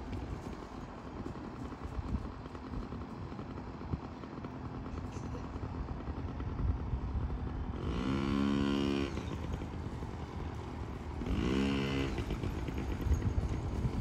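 Yamaha PW50's small single-cylinder two-stroke engine running, revving up twice, about eight seconds in and again about three seconds later.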